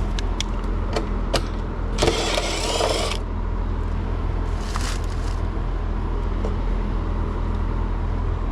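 Steady low hum of a Trane two-stage outdoor air-conditioning unit running, with a few sharp clicks in the first second or so and a loud rushing noise lasting about a second, starting about two seconds in, with a shorter one near five seconds.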